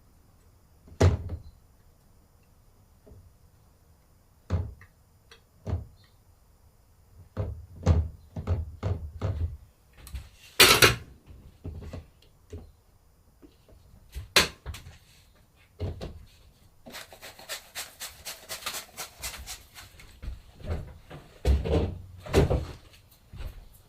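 Hands-on work sounds of silkscreen stencil making: a scattered series of knocks, taps and clatters as equipment is handled and set down, with a brief louder noisy burst about ten seconds in and a run of quick ticks a few seconds later.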